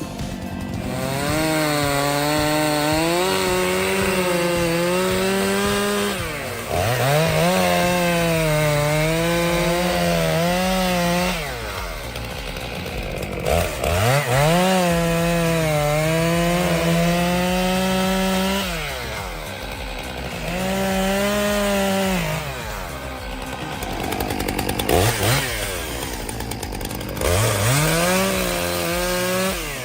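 Two-stroke chainsaw run up to full throttle again and again through a series of cuts, about six in all: each time the pitch climbs quickly, holds high while wavering under the load of the cut, then falls away as the throttle is released.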